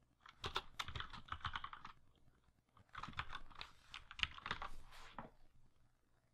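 Typing on a computer keyboard: two runs of quick keystrokes, the first lasting under two seconds and the second about two and a half seconds, with a short pause between them.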